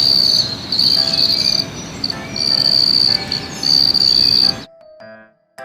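Insect trilling at a high, steady pitch in stretches of about a second with short breaks, over an even noisy background. It cuts off suddenly near the end, and a few soft music notes follow.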